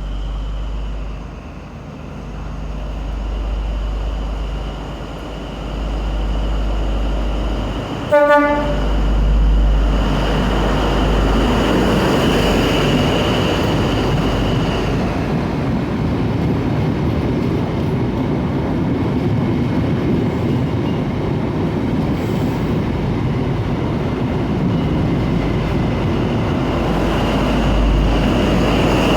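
Class 43 HST diesel train passing close by. A low rumble builds as it approaches, a single short horn blast sounds about eight seconds in, and then steady loud rolling noise follows as the train goes by.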